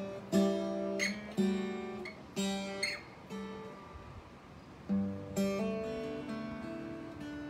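Acoustic guitar strummed, each chord left to ring; a run of strums in the first three seconds, a lull about halfway, then two more strums and a last chord ringing out.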